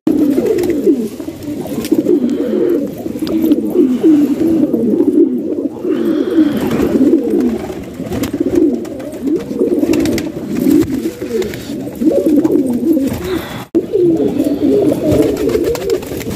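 A flock of domestic fancy pigeons cooing, many overlapping coos running on continuously.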